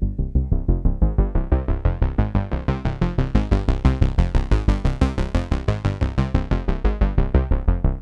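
Arturia MatrixBrute synthesizer playing a fast sequence of short repeated bass notes, about six a second, through a Dave Smith Curtis low-pass filter (the Prophet 6 filter). The filter opens over the first few seconds, making the notes much brighter, then closes again toward the end.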